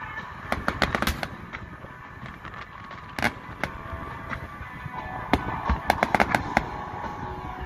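Aerial fireworks shells bursting over the water: scattered bangs and crackles, with one strong bang about three seconds in and a quick run of bangs from about five to six and a half seconds in.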